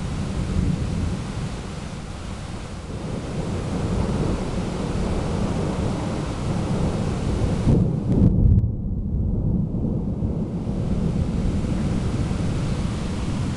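Thunder rumbling low through a steady hiss of rain, swelling to its loudest about eight seconds in. Just after that the high hiss briefly drops away while the rumble carries on.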